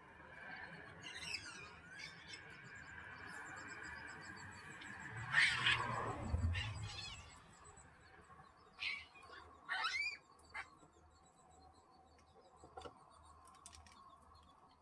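Birds chirping: a handful of short calls that slide up and down in pitch, the loudest about five and a half seconds in and another pair around ten seconds, over faint outdoor ambience.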